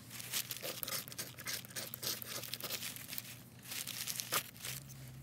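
Ferro rod being scraped over a wad of tinder on crumpled paper to throw sparks: a series of short, rasping scrapes at an uneven pace, with some crinkling of the paper.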